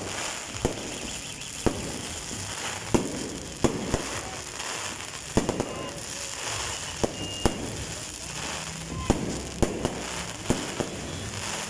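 Aerial fireworks display: a dozen or more sharp bangs of bursting shells at irregular intervals.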